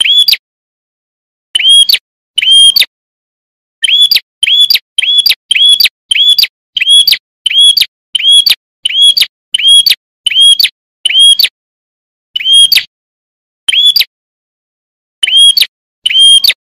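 Prinia (prenjak) call repeated in a quick series of short, identical chirps, each a brief arching note. They come about one to two a second, with a few short pauses.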